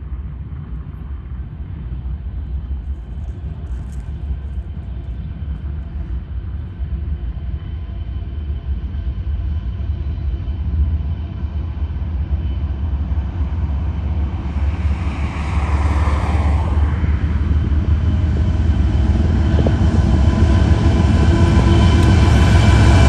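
BNSF diesel freight locomotives approaching at the head of an intermodal train: a low engine rumble that grows steadily louder as the lead units come up and pass, with steady engine tones rising out of it near the end.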